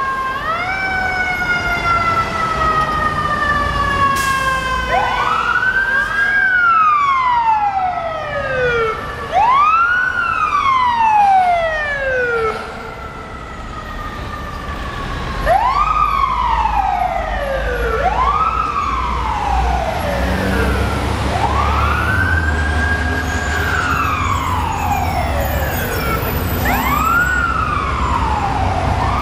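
Fire apparatus mechanical siren of the Federal Q kind, wound up quickly and let coast down in a falling wail again and again, about every two to three seconds, after a long slow wind-down near the start. A low engine rumble runs beneath.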